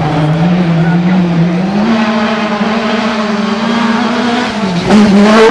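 Off-road rally car's engine under hard acceleration up a dirt track. The pitch steps up about two seconds in and holds, dips briefly, then a louder burst of revs comes near the end.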